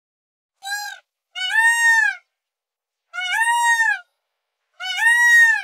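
Indian peafowl (peacock) calling four times: a short call about half a second in, then three longer, louder calls of nearly a second each with pauses between, each rising and then falling slightly in pitch.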